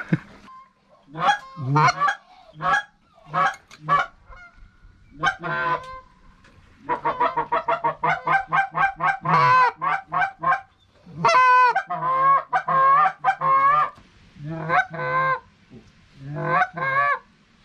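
Geese honking: scattered honks, then a fast series of short honks about seven seconds in, followed by longer honks that bend in pitch.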